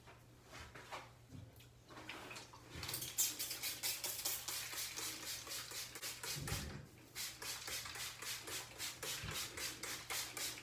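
Handheld spray bottle misting hair with quick repeated squirts, about four a second, after a few seconds of faint rustling, with a single dull thump partway through.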